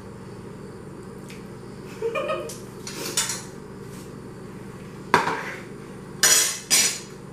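Metal fork clinking against a plate, then the plate set down on the counter with a few sharp clatters, the loudest near the end.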